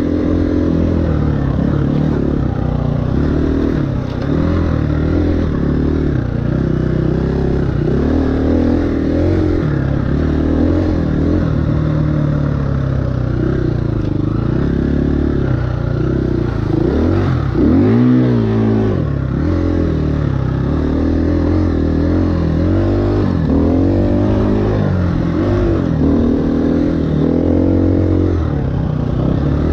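2018 KTM 350 EXC-F's single-cylinder four-stroke engine running under load as the bike is ridden, its pitch rising and falling again and again with throttle and gear changes, with a sharp drop and climb about eighteen seconds in.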